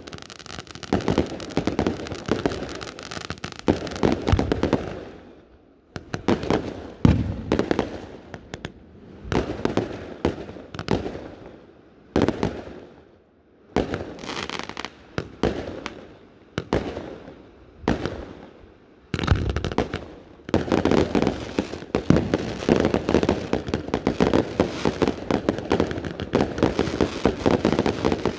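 A fireworks display going off in quick volleys of bangs and crackling, with short lulls between them. About two-thirds of the way through it becomes a dense, unbroken barrage.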